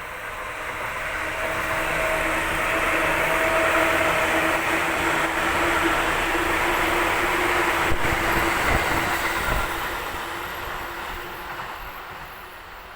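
Electric commuter train passing by: its rolling noise and a steady hum grow louder, peak in the middle and fade away as it recedes. About two-thirds of the way through there is a short run of low clattering thuds from the wheels.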